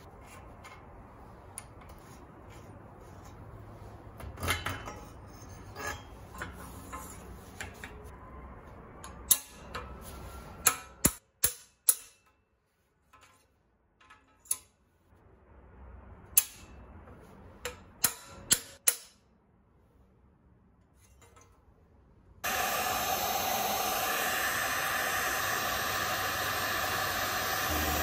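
Headset removal on a bicycle frame's head tube: scattered clicks, then a run of sharp metal knocks as the headset cups are driven out with a cup-removal tool. About 22 seconds in, a loud steady noise starts suddenly and keeps going.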